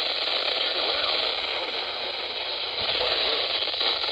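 Weak NOAA Weather Radio broadcast from KHB32 buried in heavy static, a faint voice barely audible through the steady hiss. The static is the sign of a distant station at the edge of reception.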